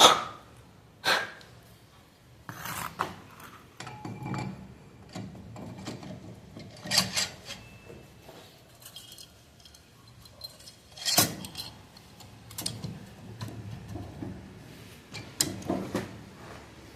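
Sharp metallic clinks and taps with rubbing in between, from engine parts and tools being handled as the cylinder head goes onto a small motorcycle engine. The loudest clink comes about eleven seconds in.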